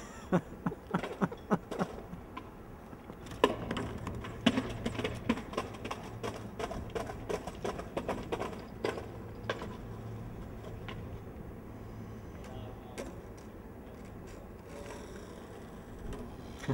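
Scattered light knocks and scuffs from footsteps on stone stairs and a skateboard being handled and set down, at an irregular pace with pauses. A faint low hum runs underneath through the middle.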